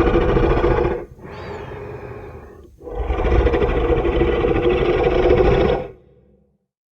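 Giganotosaurus roar sound effect: a long loud roar, a shorter, quieter growl, then a second long roar that stops about six seconds in.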